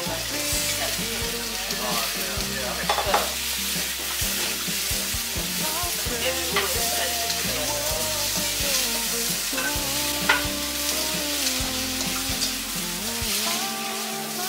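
Chopped tomatoes and onions sizzling in a hot wok as they are stir-fried, the spatula scraping and now and then knocking against the pan. Background music plays underneath.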